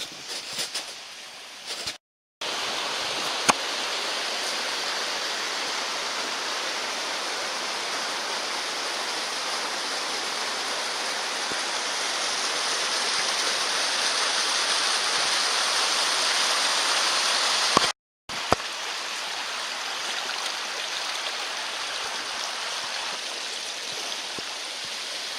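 Steady rushing water, growing slowly louder, then dropping to a quieter rush after a sudden break about 18 seconds in.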